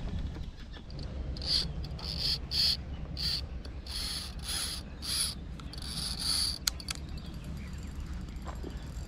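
Daiwa Black Widow 4000 BR spinning reel giving line in about ten short, high-pitched whirring bursts as a carp makes a fast run. A sharp click comes near the end.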